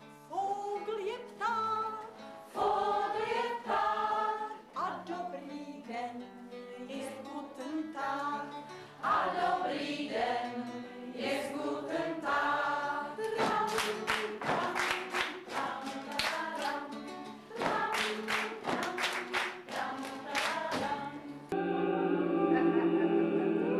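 A group of voices singing in chorus; about halfway through, sharp rhythmic strokes, claps or percussion, come in under the singing. Near the end the sound cuts abruptly to a different, fuller passage.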